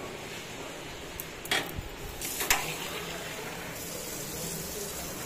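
Objects being handled and set down at a puja shrine: a few knocks and clinks, the two sharpest about a second apart, over a steady low hiss.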